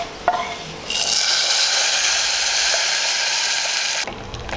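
Hot coconut-oil tempering of mustard seeds, shallots, dried red chillies and curry leaves poured into the curry, sizzling. A light click comes first; the steady hiss starts about a second in and cuts off suddenly near the end.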